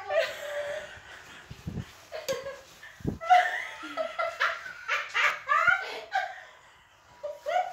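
People laughing and giggling in repeated bursts, with a couple of dull low thumps about one and a half and three seconds in.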